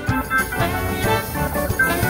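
Instrumental background music with a swing-jazz feel.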